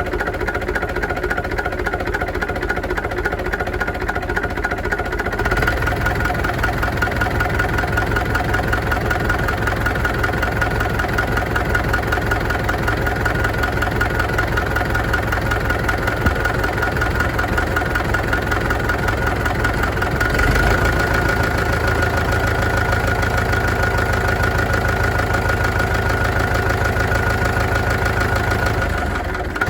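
UTB U650 tractor's four-cylinder diesel engine idling steadily. It gets louder about five seconds in and swells briefly about two-thirds of the way through.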